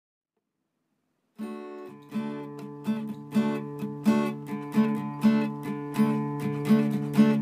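Acoustic guitar strummed in a steady rhythm, about two strums a second, starting after a second and a half of silence: the opening of a folk-rock song.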